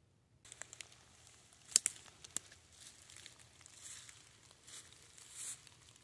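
Footsteps through dead leaf litter and brush: rustling and crunching leaves with a few sharp snaps of twigs, starting about half a second in. The loudest snap comes a little before two seconds in.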